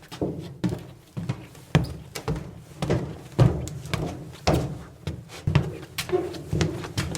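Footsteps in tennis shoes on the metal deck of a bleacher aisle, a steady walking pace of about two steps a second, each step a dull thunk on the metal.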